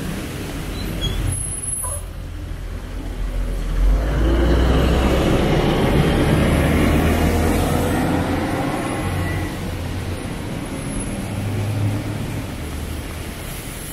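Road traffic: a large motor vehicle's low engine hum builds about four seconds in, is loudest for a few seconds, then eases, over a steady hiss of passing traffic. A short high-pitched squeak comes about a second and a half in.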